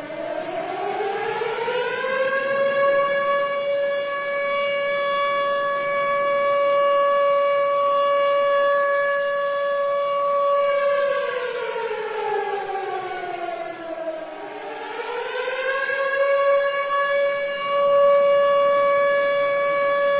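Civil defence siren sounded for the 10 November commemoration of Atatürk. It rises to a steady wail, falls in pitch about halfway through, then rises again and holds.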